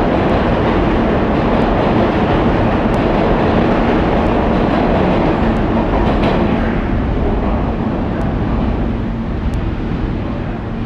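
New York City subway train, R160 cars, moving through the station: a loud, steady rumble of wheels on rail. It fades gradually from about two-thirds of the way in as the last cars pull away.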